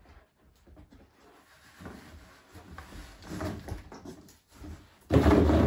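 A dog jumping into a cardboard box full of plastic ball-pit balls. Faint scuffling comes first, then about five seconds in a sudden loud clatter of balls and cardboard.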